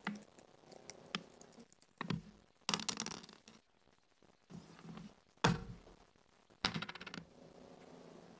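Backgammon checkers clicking as they are set down and moved on a wooden board, with dice thrown onto the board and clattering in two quick runs of rattles.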